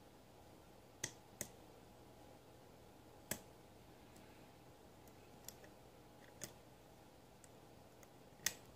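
Scattered small metallic clicks, about six over several seconds, as a hook pick works the pin stack of a custom-pinned Abus Bufo padlock under a tension wrench. The loudest click comes near the end.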